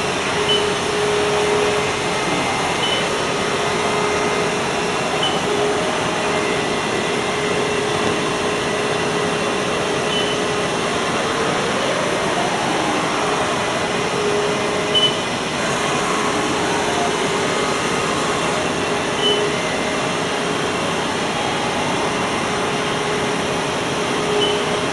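Haas ST-30SSY CNC lathe running: a steady mechanical hum with a few held tones. A tone sweeps up and back down about halfway through and again near the end, and there is one short knock a little past the middle.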